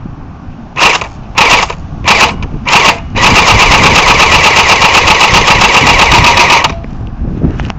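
Battery-powered airsoft electric gun firing on full auto: four short bursts, then one long burst of rapid, evenly spaced shots lasting about three and a half seconds that cuts off sharply.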